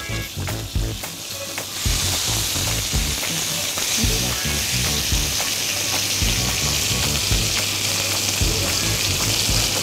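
Beef tenderloin searing in a very hot frying pan with a little oil, sizzling steadily as it is turned with metal tongs to brown it on every side. The sizzle grows louder about two seconds in.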